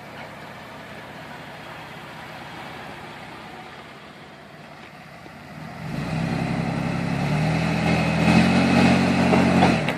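Off-road vehicle engine, faint and steady at first, then running much louder under throttle from about six seconds in, building until near the end.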